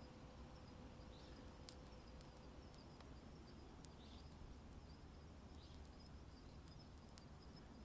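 Wood fire burning quietly, its crackle coming as sparse sharp pops and snaps, over a faint steady high chirring.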